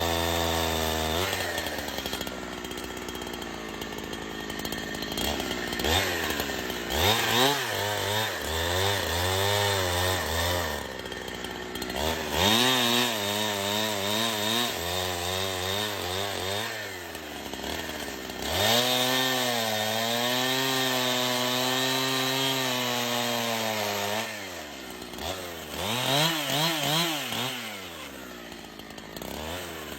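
Two-stroke chainsaw running and cutting wood, revving up in several long runs with its pitch wavering and dipping under the load of the cut, dropping back between runs.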